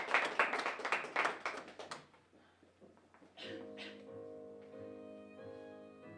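Audience applause dying away over about two seconds. After a short pause, instrumental music with sustained chords begins about three and a half seconds in, with a few last claps.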